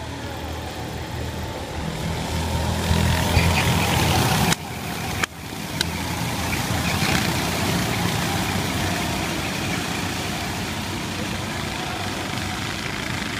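Rental go-kart engines of a racing pack, a buzzing drone that swells as karts pass close about three to four seconds in. The sound cuts out briefly twice near the middle, then settles into the steady buzz of many karts circulating.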